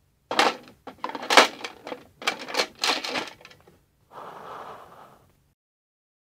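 Plastic Bionicle pieces clicking and knocking against a plastic toy skip as a figure is handled into it: a run of sharp clacks over about three seconds, then a short softer rustle about four seconds in.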